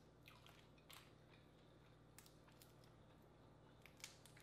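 Faint, irregular little clicks and cracks of boiled crawfish shells being broken and peeled by hand.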